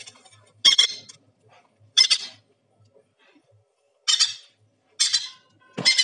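Hand-reared parrot chick giving five short, harsh begging squawks about a second apart, calling for food at its feeding time.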